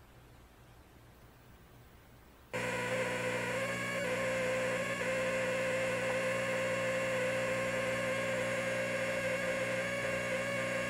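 Polaroid FLM3732 LCD TV buzzing after power-on: a steady, high-pitched buzz that starts suddenly about two and a half seconds in and holds without change. The owner traces this buzz to two failing 10 V 1000 µF capacitors on the power board.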